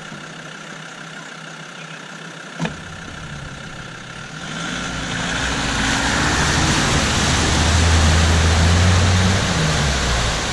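Land Rover Defender Td5 five-cylinder diesel engine pulling through deep mud and water. It grows louder from about four seconds in, with a rushing hiss of tyres churning through muddy water. There is a single sharp click about two and a half seconds in.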